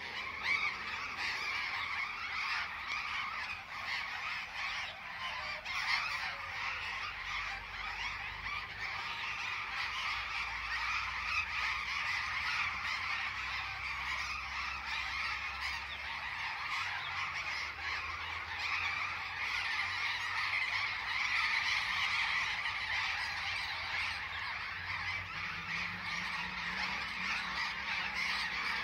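A large flock of birds perched on overhead wires, all calling at once: a dense, unbroken din of harsh squawks.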